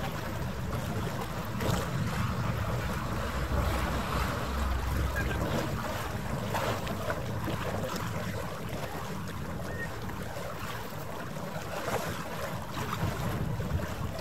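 Wind on the microphone and harbour water, with a steady low rumble underneath.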